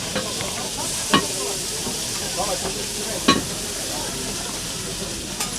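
Meat skewers sizzling on a food-stall grill, a steady hiss, with two sharp clacks about a second in and again two seconds later, over faint chatter.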